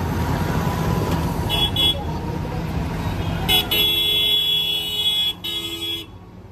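Heavy truck engine running as the convoy crawls along, with a short horn toot about one and a half seconds in, then a long horn blast from about three and a half seconds, broken once briefly, that cuts off about six seconds in.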